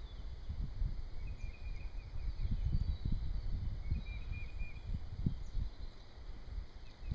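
Open-field ambience: uneven low rumbling and thumps on the microphone, with short runs of faint bird chirps about a second and a half in and again around four seconds in.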